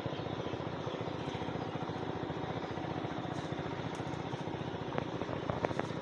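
Steady low drone of an engine running in the background, with a few light clicks near the end.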